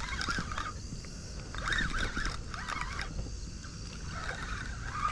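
Repeated short honking calls, like geese, coming in bouts, over a low rumble of wind and water.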